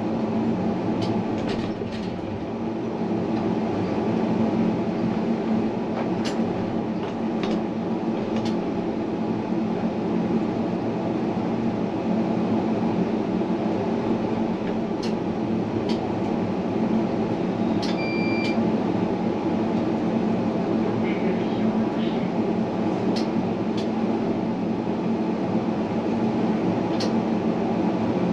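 Tram running along its line: a steady rumble with a constant low hum and scattered sharp clicks. A brief high beep sounds about eighteen seconds in.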